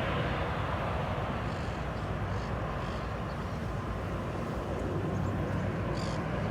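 Low engine rumble of an aircraft receding after a flyby, dropping in the first couple of seconds and then holding steady.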